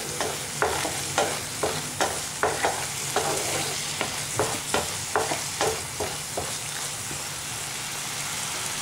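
Ground masala paste with spice powders sizzling steadily as it sautés in a non-stick pan, while a wooden spatula scrapes and stirs it in quick strokes, about two a second. The stirring stops about six and a half seconds in, leaving only the sizzle.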